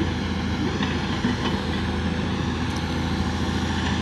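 Diesel engine of a single-drum road roller running steadily with a low drone, close by.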